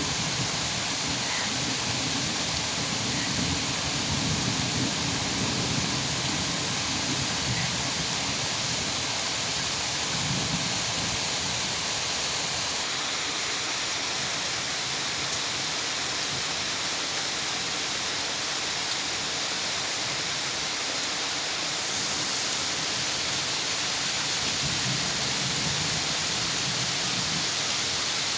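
Steady, dense rain hiss, with low rumbles swelling in the first few seconds, briefly around ten seconds in, and again near the end.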